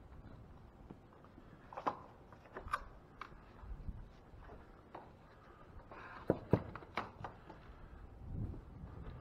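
Footsteps along a barn's cattle alley with scattered sharp knocks and clatters, a few about two seconds in and a cluster about two-thirds of the way through.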